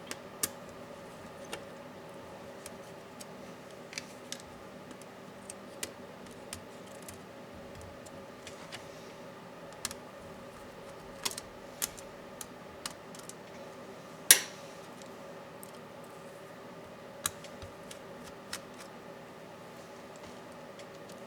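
Scattered small clicks and taps of a screwdriver and small laptop parts being handled during a laptop teardown, with one louder clack about fourteen seconds in, over a steady faint hum.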